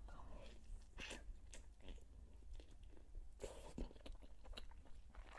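Faint close-up chewing and biting of a fried khinkali, with soft scattered crunches of the crisp dough.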